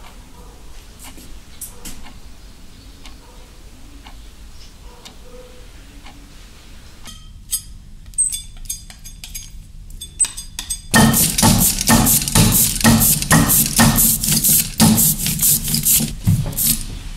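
Light clicks and taps, then, from about two-thirds of the way in, a hand ink roller (brayer) rolled across an inking slab, spreading tacky letterpress ink in a loud, dense run of rapid clicks.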